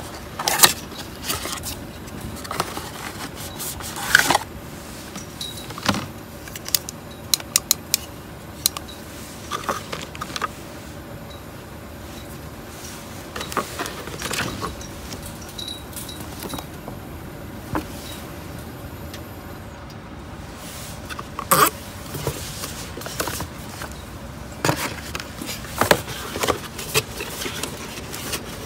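A cardboard box being opened and handled: irregular clicks, taps and scrapes of the lid and inner card, with a quieter stretch in the middle and a faint steady hum underneath.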